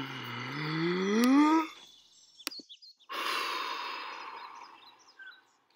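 A person breathing: a voiced breath that rises steadily in pitch for nearly two seconds, then, about three seconds in, a long breathy sigh out that fades away.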